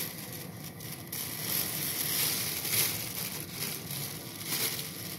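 Crinkling, rustling noise with many small crackles while crushed green cardamom is sprinkled into the pot of milk. The noise is loudest in the middle.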